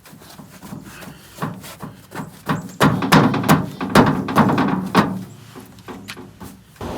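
A quick, irregular run of knocks and clatters, loudest and densest in the middle, thinning out near the end.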